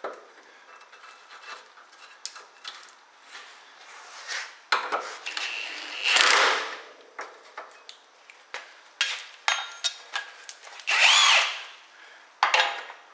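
Impact wrench running in short bursts, loudest about six and eleven seconds in, driving the bolts of a steering brace. Clinks and knocks of tools and parts between the bursts.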